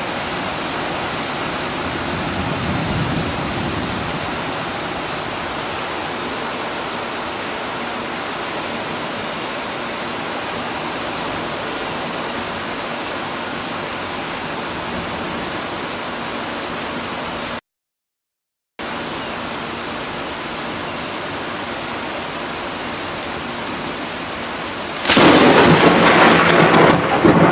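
Steady rain falling in a thunderstorm. The sound cuts out completely for about a second midway. Near the end a sudden, much louder crash of thunder from a close lightning strike breaks in and keeps going.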